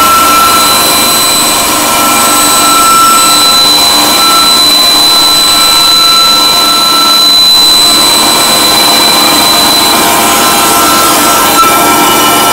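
Emco band saw running and cutting a thin sheet fed by hand: a loud, steady rasp with several high whining tones over it, and a small click near the end.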